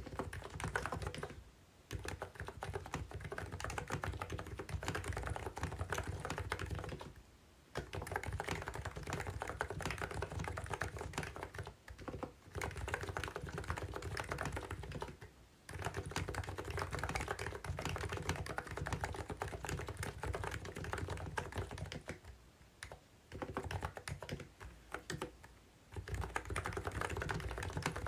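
Continuous typing on a COX CNK84W electro-capacitive mini keyboard: a rapid, dense run of keystrokes broken by several brief pauses.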